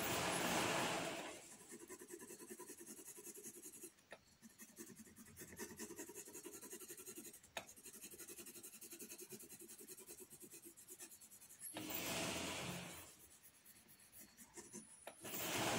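Graphite pencil shading on paper: rapid back-and-forth scratching strokes, with louder stretches of dense rubbing at the start, about twelve seconds in and near the end.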